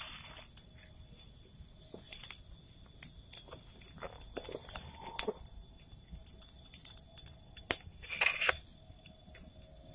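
Irregular crunches, snaps and short rustles of close handling, over a steady high drone of insects.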